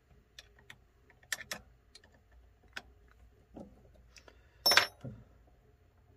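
Small metallic clicks and clinks as a cutting tool is loosened and lifted out of a mini lathe's four-way tool post, with one sharp, ringing metal clink about four and a half seconds in.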